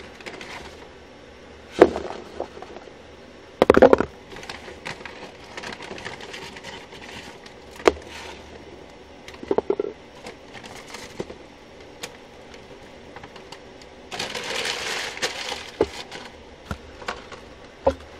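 Paper fast-food bag crinkling and rustling as fries are shaken out of it onto a paper plate, with several sharp knocks and taps on the counter. The longest rustle comes about fourteen seconds in.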